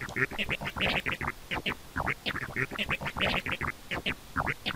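Software-made DJ turntable scratch effect: a vocal sample chopped into rapid, stuttering short bursts, several a second, each with a quick pitch sweep.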